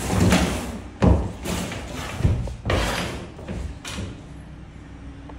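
A run of dull thumps and knocks, about five in the first four seconds, the loudest about a second in, then only quieter background noise.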